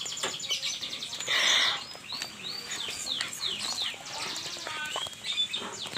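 Small birds chirping and trilling in quick, high notes, with one louder, rasping noise about a second and a half in.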